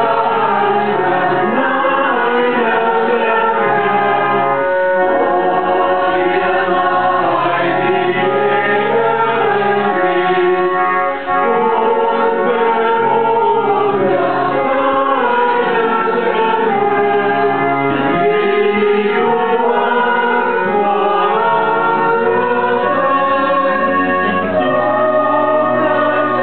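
A group of people singing together in a small church, holding long notes in a slow, steady hymn-like line.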